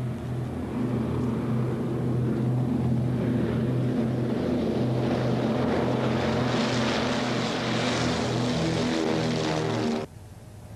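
Short Sandringham flying boat's four propeller engines running at high power on a fast run across the water: a steady, loud drone with the rush of spray swelling through the middle seconds. It cuts off abruptly about ten seconds in to a much quieter rumble.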